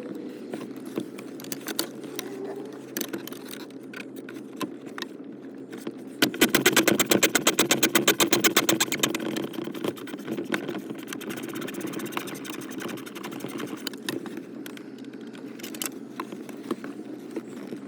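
Ratchet wrench with a 15 mm socket clicking rapidly for about three seconds, starting about six seconds in, as a console bolt is turned out. Scattered knocks and clicks of tools and parts around it.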